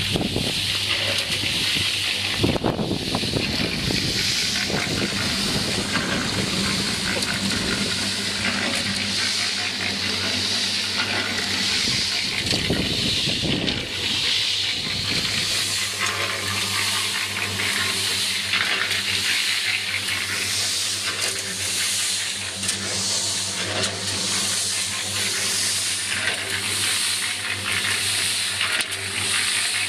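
Water running from a garden hose, splashing into a bucket and then into the drum of an electric concrete mixer as the water for a cinder-block mix is measured in. A steady low hum runs underneath.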